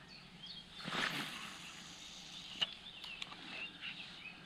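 Quiet outdoor ambience with faint, short bird chirps, a brief rustling swish about a second in, and two light clicks a little later.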